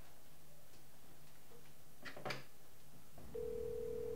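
Cordless telephone handset: two sharp clicks about two seconds in as a button is pressed, then a steady dial tone for about a second near the end, the line opened to call back.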